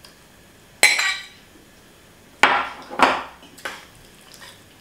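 Metal ladle clanking against a stainless steel pot while chicken pieces are stirred into the sauce: four sharp, ringing clanks, one about a second in and three close together in the second half.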